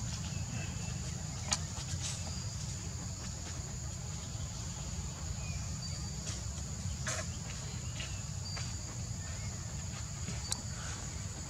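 Steady high-pitched drone of insects over a low, even background rumble, with a few short faint chirps and several sharp clicks.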